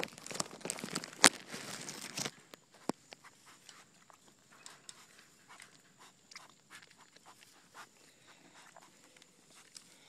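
A goat eating Cheerios from a hand, its muzzle close to the microphone. The first two seconds hold close rustling with a single sharp knock about a second in, then soft, scattered crunching clicks as it chews.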